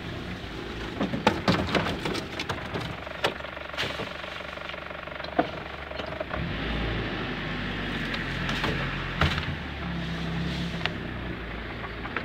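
Toyota Land Cruiser LJ73's diesel engine running steadily as it creeps along a rough dirt track. Sharp knocks and rattles come from the body and cab over the bumps, most of them in the first few seconds.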